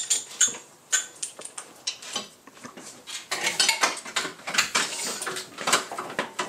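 Irregular metallic clinks, clicks and knocks of hand tools and engine-bay parts being handled.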